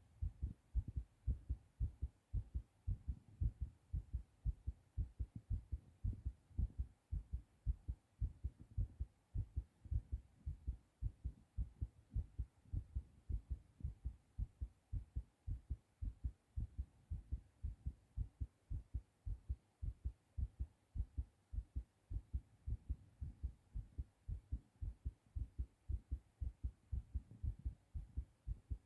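A man's heartbeat, fast and thumping after a hard bout of coughing: a quick, regular run of low, dull thumps.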